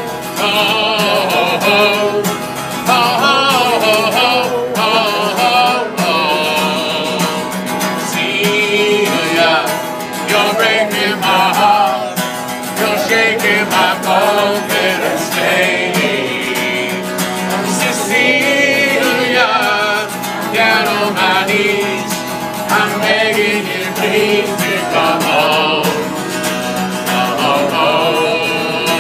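A folk song on acoustic guitar, strummed and picked, with singing over it throughout.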